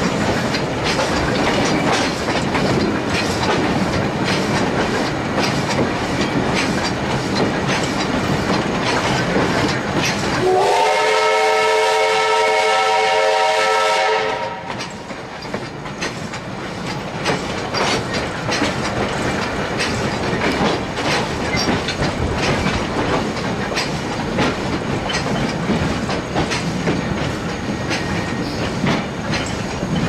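Steam locomotive on the move, its running noise a dense fast clatter, with a loud steam whistle blown once for about three and a half seconds about ten seconds in, its pitch sliding up slightly as it opens. The running noise is quieter for a couple of seconds after the whistle cuts off.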